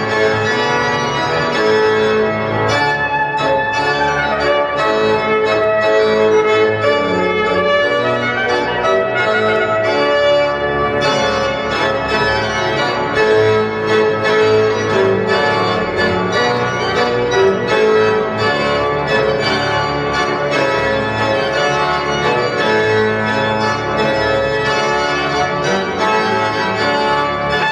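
Organ music: held chords of several notes at once, changing every second or so, played continuously.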